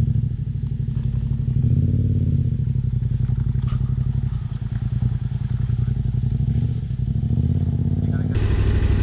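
Yamaha Ténéré 700's parallel-twin engine running at low revs on a rough dirt trail, with small rises in revs about two seconds in and again near the end, where it grows louder.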